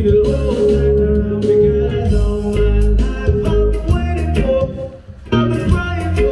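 A song with a sung vocal, guitar and heavy bass, played loud through a JBL PartyBox 310 portable party speaker. The music drops out briefly about five seconds in.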